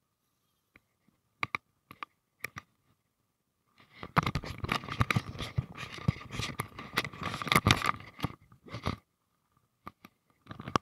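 Clothing and handling noise rubbing on the microphone of a body-worn camera while an angler works a fly line and reel: a few scattered clicks, then about five seconds of dense scraping and crackling, then a few more clicks near the end.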